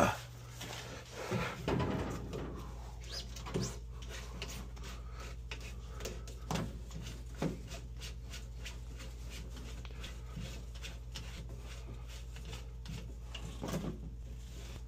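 Hands working the Burnham Alpine boiler's plastic condensate trap loose from its PVC fittings: scattered light knocks, clicks and rubbing, with a sharp click right at the start. A steady low hum runs underneath.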